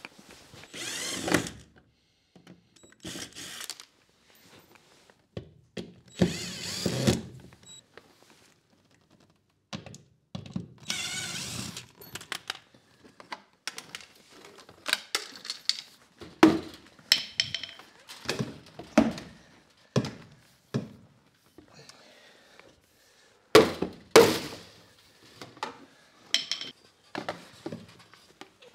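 Lengths of 100 mm PVC soil pipe and fittings being pulled apart and handled: a string of hollow plastic knocks and clunks, with a few longer scrapes of pipe sliding.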